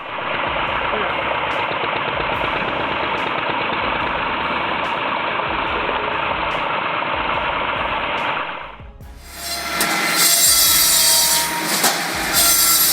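A diesel-powered firewood machine running steadily while its chainsaw cuts through wood. About nine seconds in, the sound drops and gives way to a louder, harsher stretch of wood being cut, under light background music with a beat.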